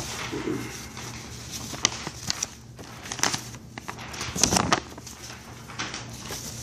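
Rustling and scattered knocks and clicks of something brushing over and against the recording phone, with a louder cluster of knocks about four and a half seconds in.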